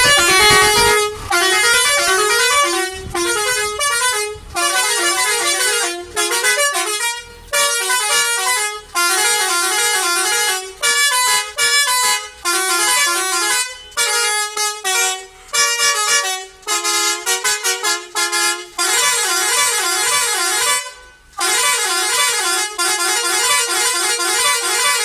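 Air horn on a Mahindra Bolero Maxi Truck sounding loudly through a tune of many short notes that step up and down in pitch, with brief pauses between phrases: a multi-tone musical horn.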